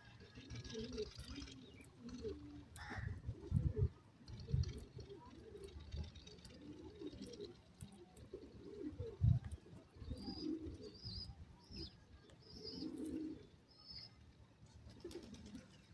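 Grey francolins giving soft, low, coo-like calls in short repeated notes, with a few thin high chirps in the second half. Three dull thumps, one just under four seconds in, one near five seconds and one past nine seconds, are the loudest sounds.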